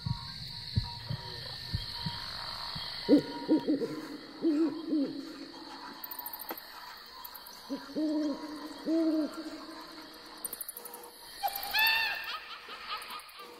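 Owl hooting in two runs of short, low hoots, the first about three seconds in and the second about eight seconds in, over a faint steady high hiss. A short, higher-pitched cry sounds near the end.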